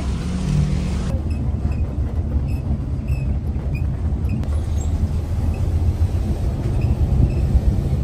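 Steady low engine rumble from a moving motor vehicle, even and unbroken, with faint short high chirps scattered over it.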